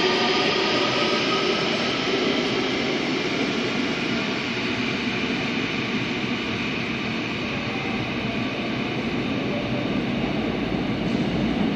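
Daejeon Metro Line 1 subway train pulling out and running off down the tunnel. An electric traction-motor whine rises slightly in pitch and fades over the first couple of seconds, leaving a steady rush and rumble of wheels on rail from the tunnel.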